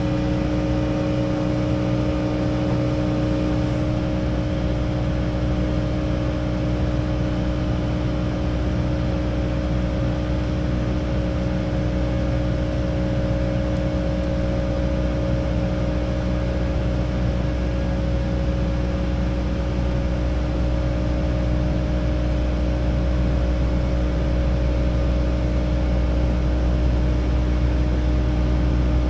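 Kubota KX080 excavator's diesel engine running steadily under load, with a constant hum and low rumble and no revving.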